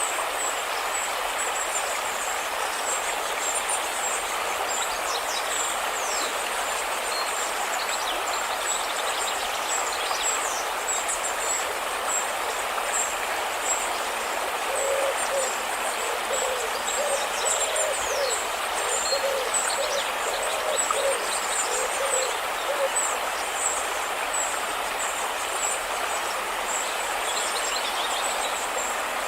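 A river flowing with a steady rush, under many short high chirps. From about 15 to 23 seconds in, a run of short, low, evenly repeated calls comes over the water.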